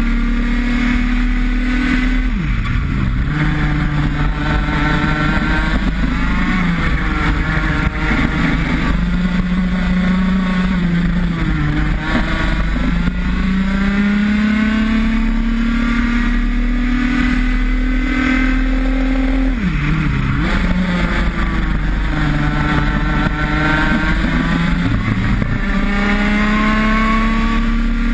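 IAME X30 125 cc two-stroke kart engine at full throttle on a hot lap, its pitch climbing steadily for several seconds along each straight and then dropping sharply as the driver lifts and brakes for a corner, several times over.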